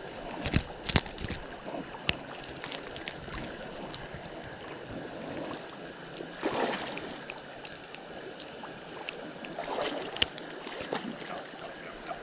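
River water running steadily, with a few sharp clicks in the first second or so and two brief swishes about six and a half and ten seconds in.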